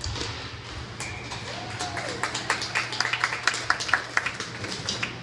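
Scattered hand clapping from a small crowd of spectators in an ice rink, quick irregular claps starting about two seconds in and stopping near the end, over a steady low hum.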